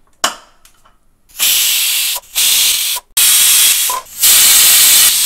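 Pressure cooker's weighted whistle: a click as the weight is set on the vent, then four loud hissing whistles of steam in a row, each about a second long, the last one longest. The whistles mean the cooker is at full pressure and venting, and their count times the cooking of soaked chickpeas.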